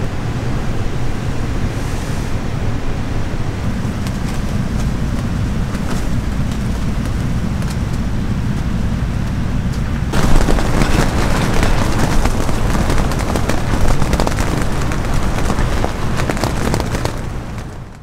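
Mountain valley stream rushing steadily, a continuous water noise. It gets louder and brighter about ten seconds in, then fades out at the very end.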